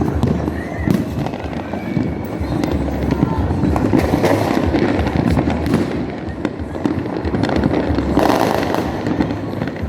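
New Year's fireworks and firecrackers going off continuously from many directions: a dense run of bangs, cracks and crackles over a steady low rumble.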